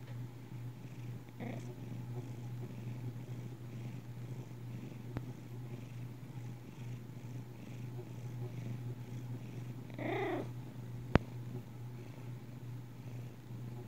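A tabby cat gives one short mew about ten seconds in, over a low steady hum, and a sharp click follows soon after.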